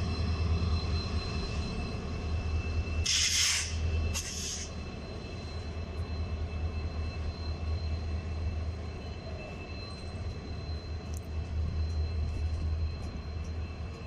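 Indian Railways passenger coaches rolling slowly past on the track, a steady low rumble of wheels and running gear. Two short hisses come about three and four seconds in.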